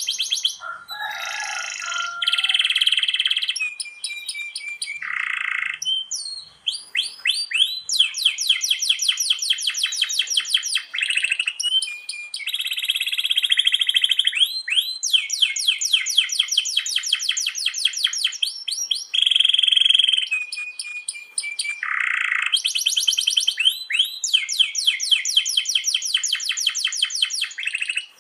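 Domestic canary singing a long, continuous song of rolls, each roll a run of quickly repeated rising notes, with short buzzy phrases between them.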